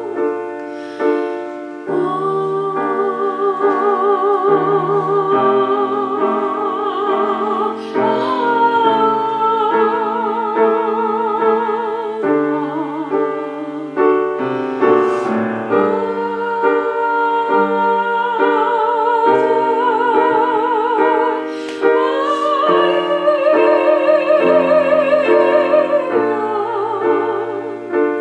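Live music: piano chords under a melody held in long notes with a wide, even vibrato, sliding smoothly between some notes.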